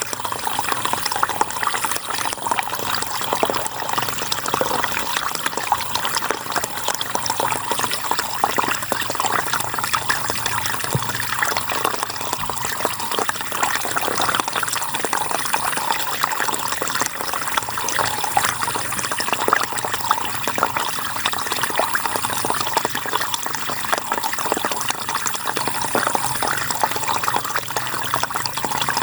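River water flowing steadily, a dense even rush of splashing.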